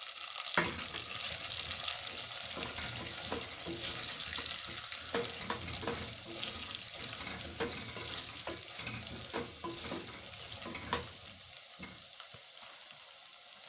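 Beef with pilau masala and soy sauce sizzling in a pot, while a spoon stirs it, scraping and clicking against the pot. The stirring stops after about 11 seconds, leaving only a quieter sizzle.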